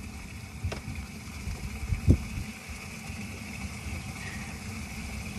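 A steady motor hum over a low rumble, with a sharp click and then a soft knock about two seconds in.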